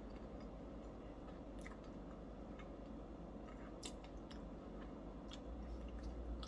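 A person chewing a mouthful of peanut butter cup with peanut brittle pieces, faintly, with a few small scattered clicks.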